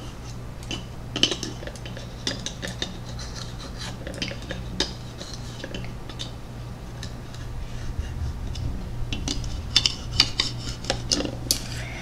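Pink plastic toy knife and fork scraping and clicking against a plastic toy waffle and plate as the waffle is cut apart, in quick irregular taps that grow busier near the end.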